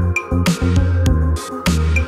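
Electronic background music with a heavy, held bass line and sharp drum hits in a steady beat.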